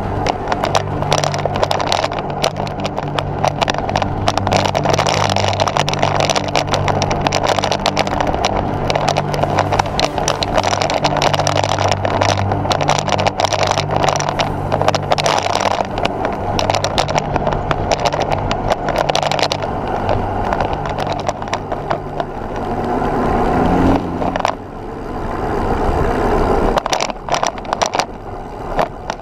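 Wind rush and road noise on a camera mounted on a moving road bike, with frequent short knocks and rattles from the road surface.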